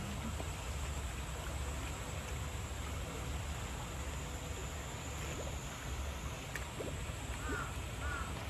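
Steady rushing outdoor noise, heaviest at the low end, with two or three short falling chirps near the end, about two-thirds of a second apart.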